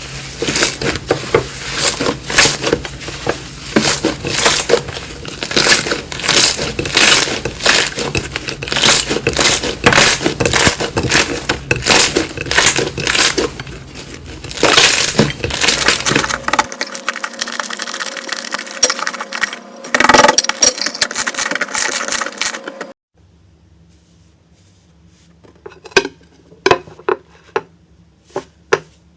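Slime being squeezed and pressed by hand, making dense, rapid crackling and popping clicks. The sound changes partway through. After a sudden cut it becomes much quieter, with only a few scattered clicks.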